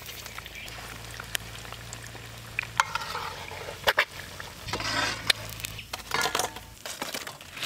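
Battered egg pakoras sizzling and bubbling in hot oil in a wok. Sharp clicks from a metal slotted spoon against the pan come several times.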